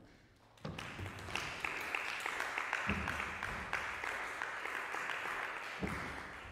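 Audience applauding, a dense patter of clapping that starts about half a second in and dies away near the end. Two low thuds can be heard within it.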